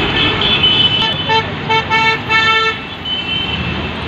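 Road traffic running past, with a vehicle horn honking several short times between about one and three seconds in, the last toot the longest.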